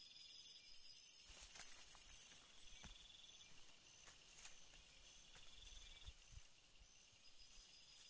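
Near silence with faint forest insects: a steady high-pitched buzz and short high chirps repeating at an even pace, with a few soft ticks and knocks.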